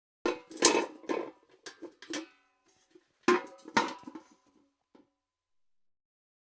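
Steel bucket being knocked and clattered, a string of sharp metallic hits that ring briefly, in two clusters with a short gap between them.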